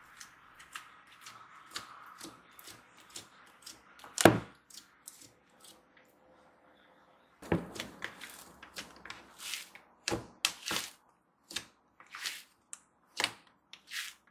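Fluffy slime being poked, pressed and folded by hand in a plastic bowl: a run of sticky clicks and pops, the loudest a sharp snap about four seconds in, with a short lull around six seconds.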